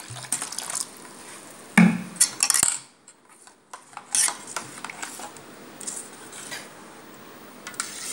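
Metal spoon stirring a liquid mango mixture in a stainless steel bowl, clinking and scraping against the bowl's side, with a louder knock about two seconds in.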